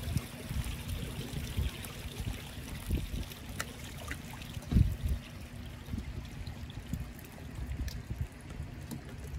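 Small waves lapping and trickling against a dock and a floating jet ski's hull, with wind rumbling on the microphone. A louder low thump comes about five seconds in.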